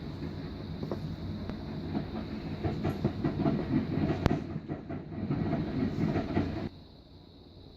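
Rapid, uneven small clicks and rubbing from a smartphone and its parts being handled, with one sharp click about four seconds in; the clatter stops suddenly near the end.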